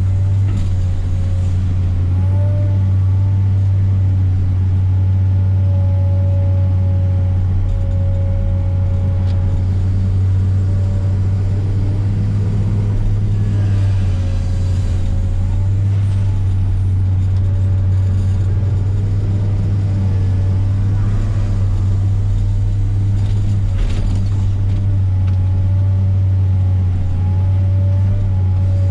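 Diesel engine of a Komatsu PC300 excavator running steadily under work, a deep drone with a fainter higher whine that wavers up and down.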